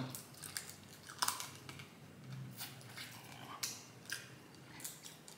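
Snow crab legs being picked apart by hand and eaten, close to the microphone: scattered short shell crackles and clicks with chewing, the sharpest crack about a second in.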